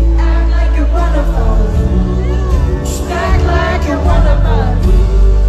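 Live band music with singing, recorded from the crowd at a concert, with heavy bass.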